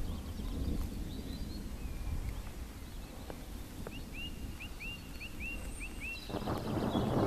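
Steady low outdoor rumble, with a bird calling a quick run of about seven short, rising, high notes in the second half. Near the end a louder deep rushing rumble sets in.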